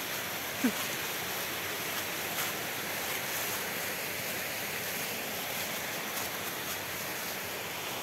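Steady rush of a forest stream running over small waterfalls and cascades. One brief falling blip comes about half a second in.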